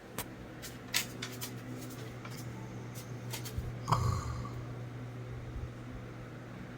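A man snoring heavily: one loud snort about four seconds in, with scattered light clicks in the first half over a steady low hum.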